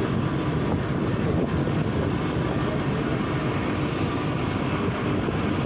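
Steady low rumble and rushing noise of a vehicle in motion, heard from on board, with no gear changes or clatter.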